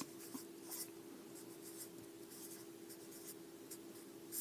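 Felt-tip marker writing numbers on paper, a series of faint short scratchy strokes, over a steady low hum.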